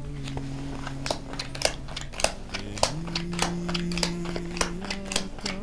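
Cowrie shells (búzios) being handled and cast for a divination reading: many small, sharp, irregular clicks. Under them, soft sustained background music chords that step up in pitch about halfway through.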